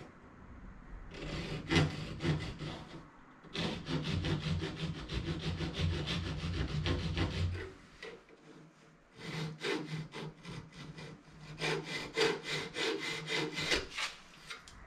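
A hand saw cutting aluminum stock in four bouts of rapid back-and-forth strokes, with short pauses between the bouts.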